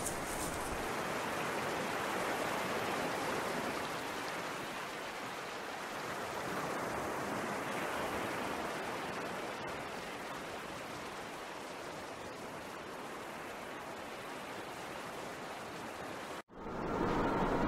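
A steady, even rushing noise, like water or wind on the microphone, cuts off suddenly a second before the end, and music starts right after.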